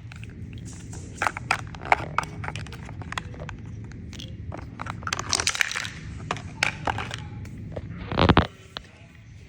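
Small plastic toy pieces being handled: scattered light clicks and taps, a stretch of crinkling about five seconds in, and a louder knock near the end, over a steady low hum.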